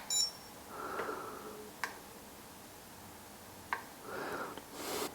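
Faint clicks of buttons pressed on an e-bike's handlebar display remote, twice, about two seconds apart, with a short high electronic beep at the very start as the display pages between screens. Soft breaths and handling noise between the presses.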